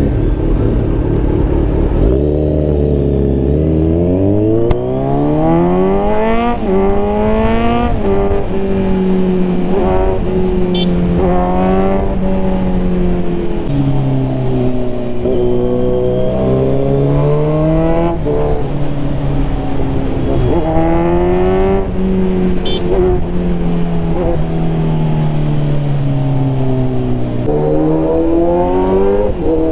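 Kawasaki Z900 inline-four with a Mivv full-system aftermarket exhaust, accelerating through the gears. The engine note climbs and drops back at each upshift several times in the first dozen seconds, then rises and falls with the throttle.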